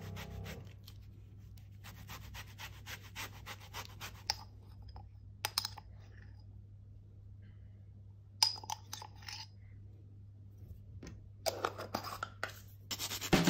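A lemon rubbed over a fine metal rasp grater in quick scraping strokes, then a metal teaspoon clinking against a glass spice jar a few times as spice is scooped out; grating starts again just before the end. A faint steady low hum lies underneath.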